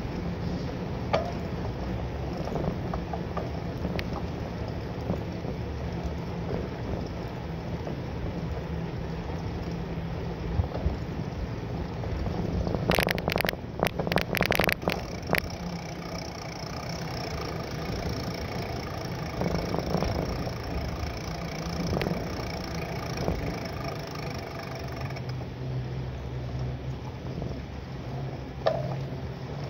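Bicycle ride picked up by a bike-mounted camera: steady wind and road rumble, with occasional knocks and a burst of rattling about halfway through as the rig and bike jolt over bumps.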